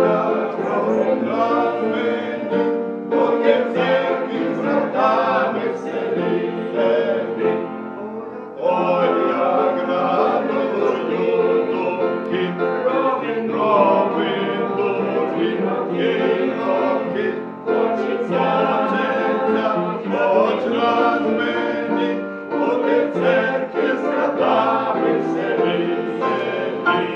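A small group of men singing a Ukrainian Christian song together in long phrases, with brief pauses between them.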